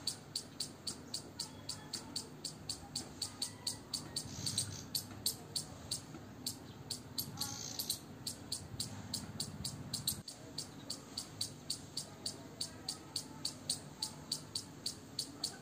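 Squirrel calling a rapid, evenly spaced series of short high-pitched chirps, about three to four a second, kept up without a break.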